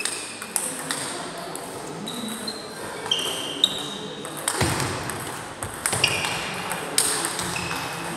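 Plastic 40+ table tennis balls being struck back and forth in a rally: quick, irregular clicks off rackets and the table, some with a short high ping. Balls from other tables in the hall click in among them.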